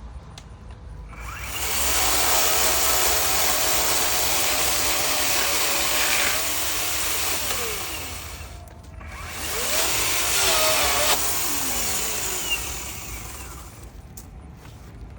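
Chainsaw running at full throttle, cutting through a fallen tree limb: one long run of about seven seconds, a brief dip as the engine winds down and revs back up, then a shorter run that eases off.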